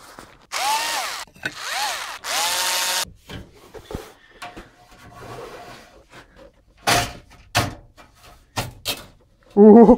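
Cordless drill-driver running in three short bursts, its motor whining up and winding down each time as it backs out the screws of the amplifier's top cover. A few sharp knocks follow near the end as the perforated metal cover is handled.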